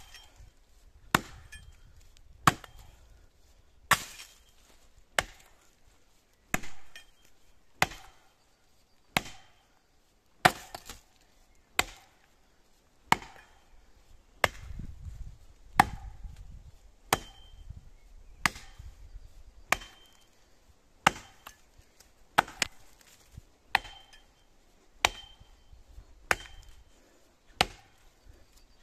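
Axe chopping into a standing pine trunk, cutting a notch near its base: steady, evenly spaced strikes about one every 1.3 seconds, some followed by a short high ring.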